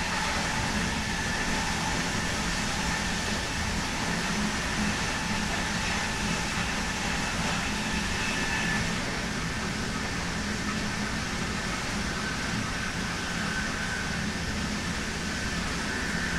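DB Class 101 electric locomotive under way, heard from inside the coach coupled behind it: steady running noise with the thin whine of its Adtranz/ABB MICAS-S GTO traction inverter. The sound eases slightly about nine seconds in.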